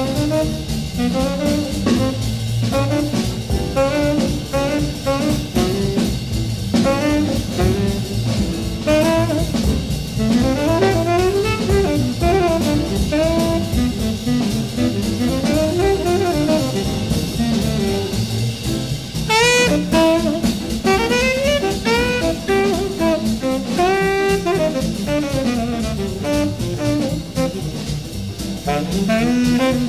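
Mid-1950s small-group jazz recording: a horn plays melodic lines over bass and drum kit, with a quick rising run about two-thirds of the way through.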